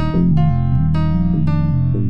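Instrumental music on an electronic keyboard: a melody of struck, decaying notes, about three a second, over a steady low bass line.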